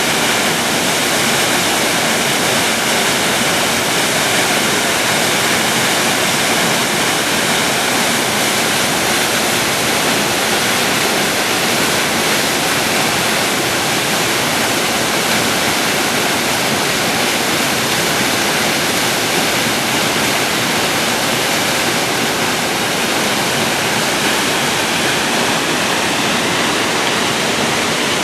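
Mountain waterfall: a steady, unbroken rush of falling water.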